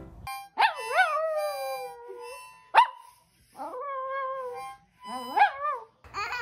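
Small dog howling along to a harmonica: three long howls that rise and fall in pitch, with a short yelp between the first two, over steady harmonica notes.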